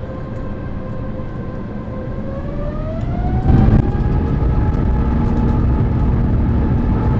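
Airbus A350-1000's Rolls-Royce Trent XWB engines spooling up for takeoff, heard inside the cabin: a whine climbs in pitch over the first few seconds and then holds steady as the engines reach takeoff power. A brief loud rumble comes about three and a half seconds in.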